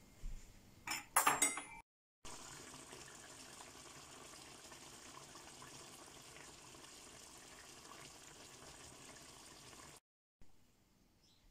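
A brief clatter about a second in, then chicken pieces and eggs simmering in sauce in a pan: a steady bubbling hiss for about eight seconds.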